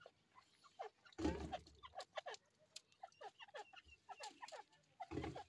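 Teetar (francolin) giving many short, soft falling chirps one after another. A louder scuffle in the dirt comes about a second in and again near the end.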